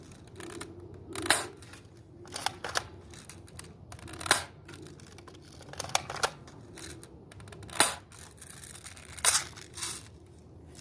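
Airsoft gun firing single shots: a sharp snap every second or two, about nine in all, some coming in quick pairs.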